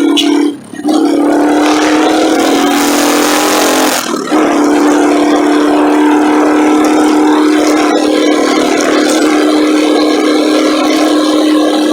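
Motorcycle riding at a steady speed, picked up by a phone in its handlebar holder: a loud, steady drone that dips abruptly twice, just under a second in and about four seconds in.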